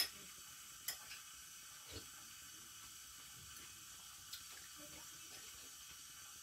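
Spoon stirring okroshka in a stainless steel pot, a few faint clicks of the metal spoon against the pot over a steady faint hiss.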